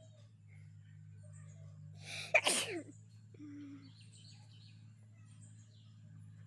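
A person sneezing once, about two seconds in: a brief build-up, then a sharp, loud sneeze that dies away within half a second.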